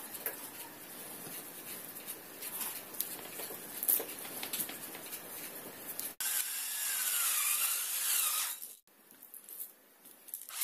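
Hands seasoning raw chicken fillets on a plate with ground black pepper: soft rustles and light ticks. About six seconds in, after an abrupt cut, a louder rasping scrape with a wavering tone lasts a couple of seconds, and it returns briefly near the end.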